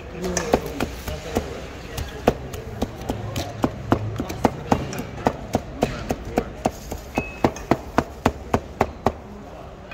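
Cleaver chopping cooked meat on a plastic cutting board: sharp knocks, scattered at first, then a steady run of about three a second from the middle on.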